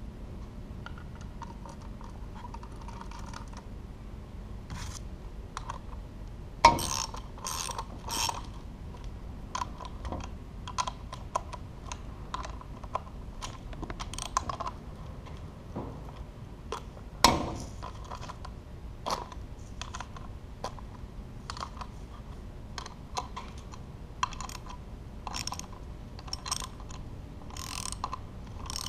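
Irregular metallic clicks and knocks of bolts being fitted and tightened with a wrench on a winch and its steel mounting plate, with two sharper knocks about seven and seventeen seconds in.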